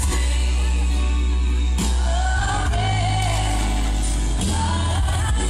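Western Christian song with a singer, played loud over outdoor loudspeakers, with heavy bass and a wavering sung melody.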